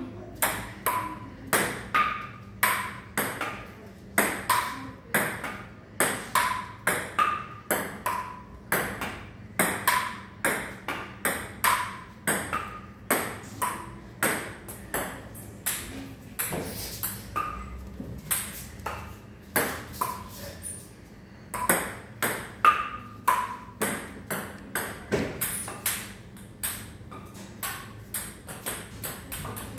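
Table tennis ball being hit back and forth in rallies: quick sharp clicks off the paddles and the table, about two to three a second, with a few short pauses between points.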